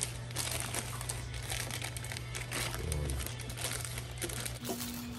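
Plastic courier mailer bag crinkling as it is handled and cut open with scissors.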